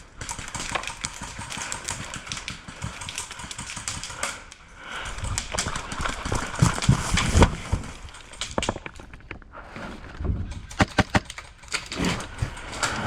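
A player on the move: rustling of clothing and gear with heavy, uneven footfalls. Near the end comes a quick run of sharp clicks.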